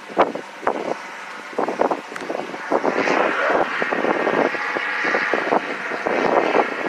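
Wind buffeting the microphone in irregular gusts and knocks, with a rushing noise that swells about three seconds in.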